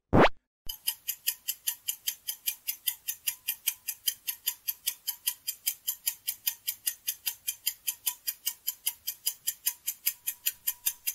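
Countdown-timer clock ticking sound effect, evenly spaced ticks at about four or five a second, marking the time allowed to guess. It opens with a short falling whoosh just before the ticking starts.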